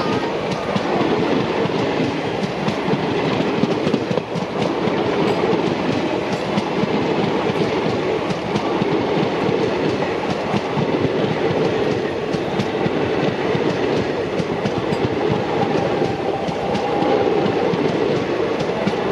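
Express passenger train running at speed, its coach wheels clattering over rail joints in a steady, continuous rumble.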